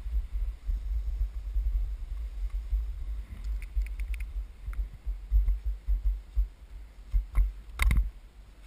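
Wind buffeting a head-mounted action camera's microphone as a low, uneven rumble while skiing down soft snow, with skis sliding over the snow and a few sharp clicks, the loudest just before the skier stops with poles planted.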